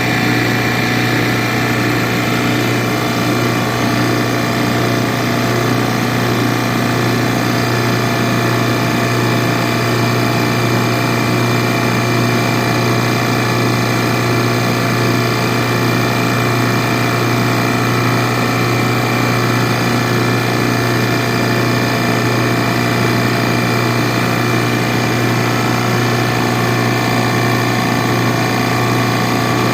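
JB F6 refrigerant recovery machine running steadily with a low hum, its compressor pulling refrigerant out of the AC unit into the recovery cylinder.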